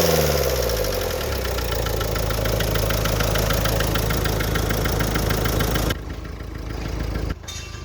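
Nissan Micra engine settling from a rev to idle, with a steady, rapid 'kat kat' knocking running through it: the knocking fault the car is being checked for. About six seconds in the level drops abruptly, and again shortly before the end.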